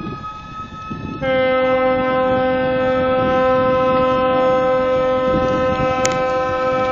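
Siren and horn sounding together as a launch salute while the ship slides down the slipway. A high, steady siren tone is joined about a second in by a lower, louder horn, and both hold steady.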